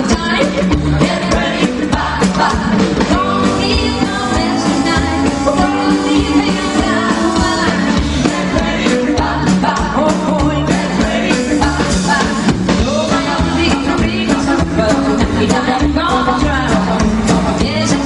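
A rockabilly band playing live with a steady beat, and a voice singing over it.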